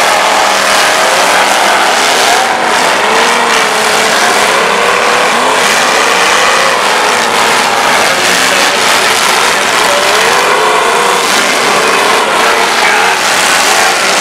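Several demolition derby cars' engines revving hard together, their pitch swooping up and down constantly as the drivers floor it and back off.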